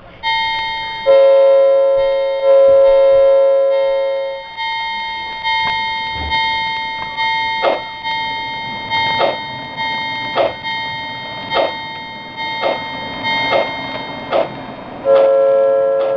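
O scale model steam locomotive's onboard sound system. A bell rings steadily throughout, a chime whistle gives two blasts near the start and another near the end, and steam chuffs come in and quicken as the engine gets under way.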